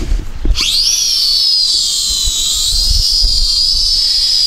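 LiDi RC L6 hexacopter's six motors and propellers spinning up with a quickly rising whine about half a second in, then settling into a steady high whine as it lifts off and hovers. Low wind rumble on the microphone underneath.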